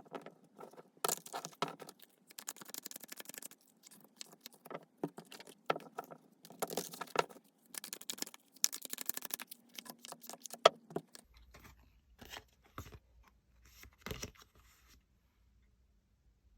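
Tarot cards handled and shuffled by hand: an irregular run of brushing, sliding and clicking sounds, with a few sharp snaps, that stops about fifteen seconds in.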